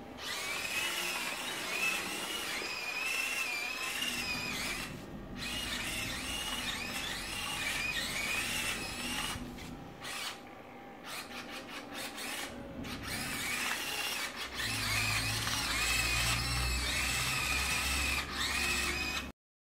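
The two servo motors of a small 3D-printed robot tank whine as they drive its tracks. The pitch wavers as the motors speed up, slow down and stop briefly several times while the tank steers to follow a ball. A low rumble joins in during the last few seconds.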